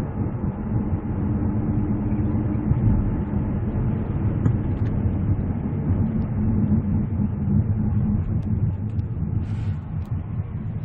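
Hyundai Grandeur HG 3.0 sedan driving steadily, heard from inside the cabin: a continuous low engine and road rumble.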